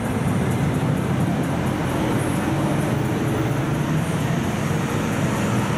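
Steady city road traffic: the continuous hum of car and bus engines and tyres on a busy multi-lane road.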